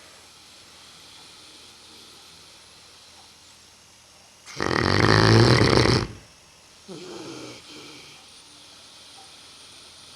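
Sleeping Neapolitan mastiff snoring: one loud snore lasting about a second and a half a little before halfway, then a quieter, shorter breath about a second later.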